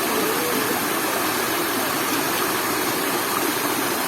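Waterfall running, a steady rush of falling and splashing water.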